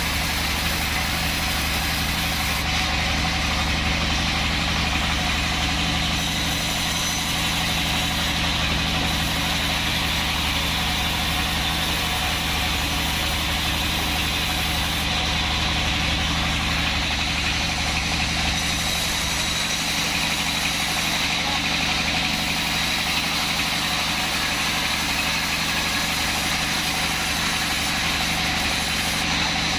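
Sawmill band saw running steadily, a constant machine hum with a high whine above it.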